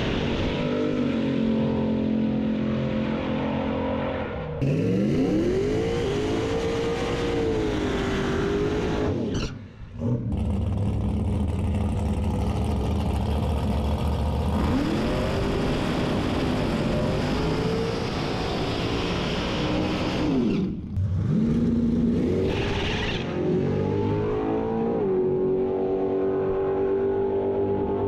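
Drag race cars' engines revving at the starting line, their pitch rising and falling repeatedly, with abrupt cuts to another car about ten and twenty-one seconds in.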